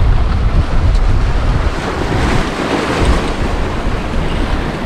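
Strong wind buffeting the microphone in gusts over the steady wash of waves, with the surf swelling about two seconds in.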